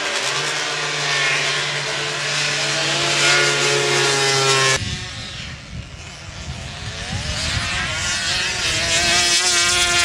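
Drag-racing ATV engines at full throttle, the pitch climbing steadily as the quads launch and accelerate. The sound cuts off abruptly a little under halfway through, and a second quad's engine winds up again toward the end before cutting off abruptly.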